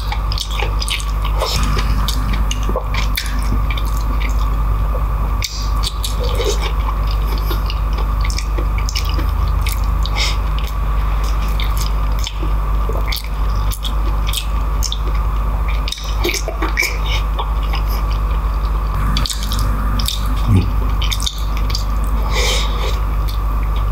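Close-miked eating: wet chewing and lip smacking, with sticky squelches of fingers pulling apart beef kare-kare (oxtail and tripe in thick sauce). It comes as many short irregular smacks and clicks over a steady low hum.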